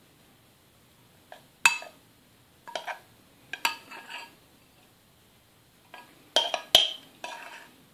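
A metal spoon clinks against the side of a glass measuring jug as thick slime is stirred and pressed inside it. The clinks come irregularly, each with a short glassy ring, the loudest under two seconds in and again near the end.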